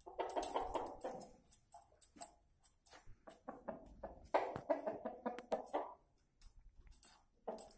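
Chickens on the roost making low, soft clucking sounds in two short runs, during the first second and again from about four to six seconds in, with light clicks and rustles between.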